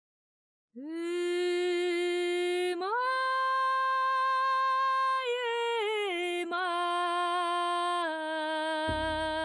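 Music from a Sakha (Yakut) song: after a moment of silence, a solo voice sings long held notes. It steps up about three seconds in and slides back down in small steps a couple of seconds later. A low drumbeat comes in near the end.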